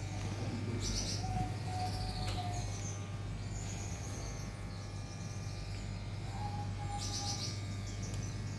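Small birds chirping and calling in short high bursts, a cluster about a second in and another near the end, over a steady low hum.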